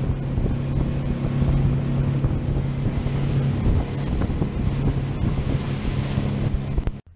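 Twin outboard motors running at speed on an aluminium center-console boat: a steady low engine drone under rushing wake water and wind buffeting the microphone. It cuts off suddenly near the end.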